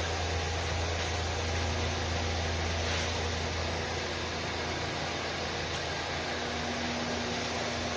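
Steady low machine hum under an even hiss, with no clicks or changes.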